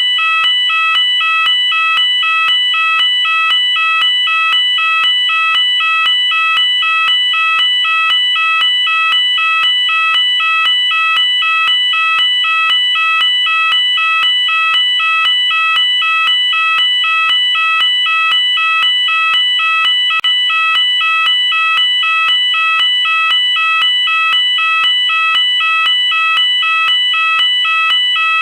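UK fire alarm sounder going off continuously, alternating between two tones in a steady pattern that repeats about once a second.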